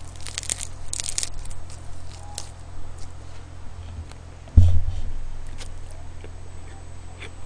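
Biting into a seaweed-wrapped triangle kimbap, the dry laver crackling crisply in the first second or so, then mouth-close chewing with small scattered clicks. A single loud low thump about four and a half seconds in.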